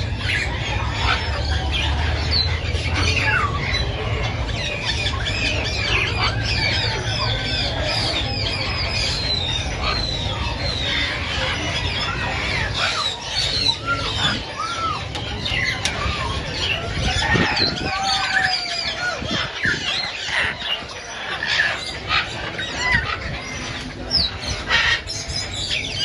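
Many caged birds, parrots among them, calling at once: a dense, overlapping mix of chirps, whistles and squawks, with a low rumble underneath during the first half.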